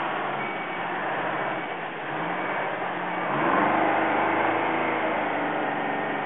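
Diesel engine of a 1981 International Harvester Paystar water truck running as the truck moves at low speed, revving up about two-thirds of the way through and getting louder, over a hiss of water spray.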